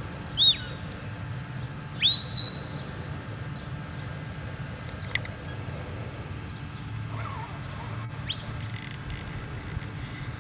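A handler's whistle commands to a herding dog working cattle. There is a short falling whistle, then a longer, louder one that sweeps up and holds. Fainter short chirps follow later.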